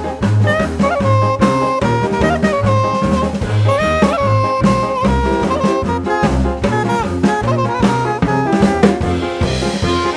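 Background music: an upbeat jazz tune with a saxophone-like lead melody over a walking bass and a steady drum beat.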